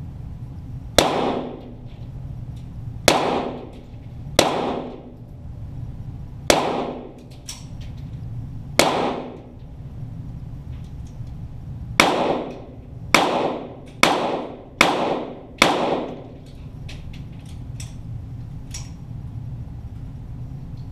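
.22 Walther GSP target pistol shots, heard from down by the targets: ten sharp cracks, each with an echoing tail. The first five come a couple of seconds apart, the last five in a quicker run about a second apart. Fainter clicks fall between and after, over a steady low hum.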